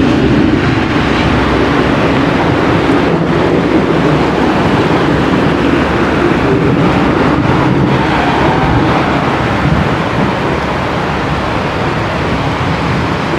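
Heavy rain in a thunderstorm: a loud, steady rush of noise with a strong low rumble underneath.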